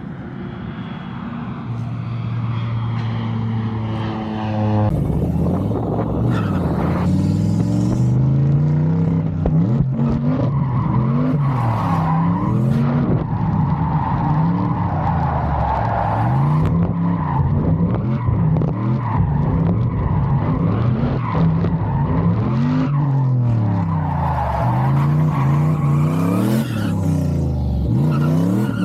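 Turbocharged LS V8 in a drift truck, revving up and down again and again through a drift run over screeching tyres. For about the first five seconds the engine pulls steadily and builds before the repeated revving starts.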